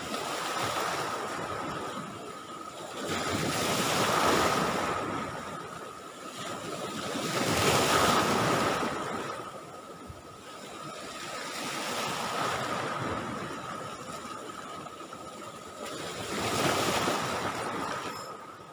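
Surf on a rough sea: waves breaking and washing up the beach, swelling and fading about every four seconds.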